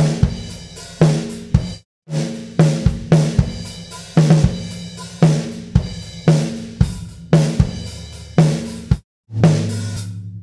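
Drum kit recording playing a steady groove of kick, snare, hi-hats and cymbals, run through a compressor/saturator plugin on the drum bus. The playback stops briefly about two seconds in and again near the end, then a last hit rings down.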